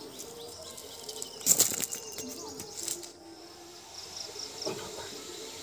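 Wet cast net with fish caught in it being lifted and shaken over bare ground: a burst of flapping and slapping about a second and a half in, and a smaller one near three seconds.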